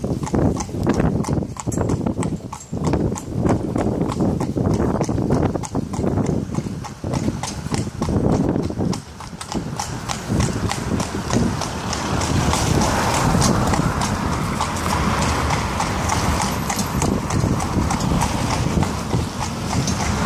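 A carriage horse's hooves clip-clopping in a steady rhythm on a wet city road as it pulls an open carriage. A steady rushing noise, like wheels and traffic on the wet street, grows from about twelve seconds in.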